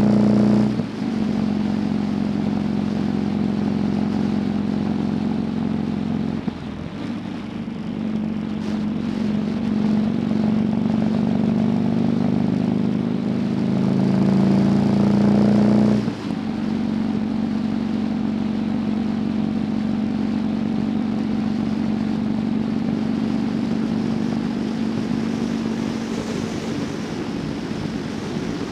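Motorcycle engine running under way over a steady rush of wind. The engine note drops sharply about a second in, again at about six and a half seconds, and once more around sixteen seconds, after climbing slowly in pitch for several seconds.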